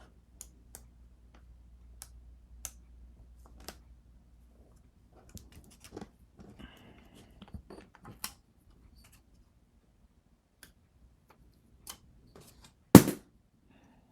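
Hands working foil tape around the edge of a glass piece: scattered light clicks and a short stretch of rustling, then a single sharp knock about thirteen seconds in, the loudest sound.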